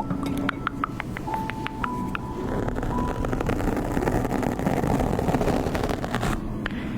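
Short rising plops and clicks with a few brief tones, giving way about two and a half seconds in to a steady rushing noise that runs on.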